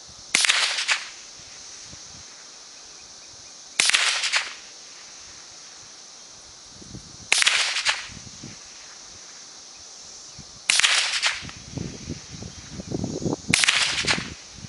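Browning SA-22 takedown semi-automatic .22 rifle firing five single shots at an even, deliberate pace, about three and a half seconds apart. Each shot is a sharp crack with a brief tail.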